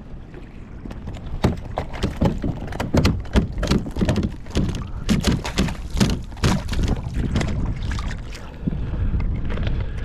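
Water splashing and slapping against a kayak, with a busy run of short, sharp splashes and knocks through the middle. Wind rumbles on the microphone throughout.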